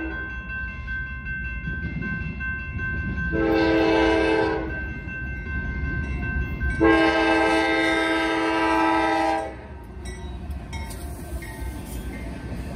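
Locomotive air horn sounding the tail of a grade-crossing signal: a blast cutting off as the sound begins, a short blast about three seconds in, then a long blast of nearly three seconds. A low train rumble runs underneath.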